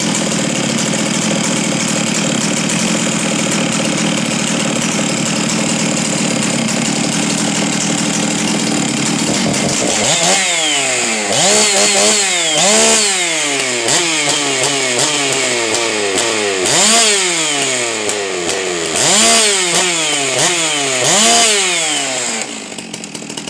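Ported Stihl MS 660 Magnum two-stroke chainsaw, with a decked cylinder and tuned exhaust, running steadily at high revs. From about ten seconds in it is revved up and down repeatedly, about eight times, before dying down near the end.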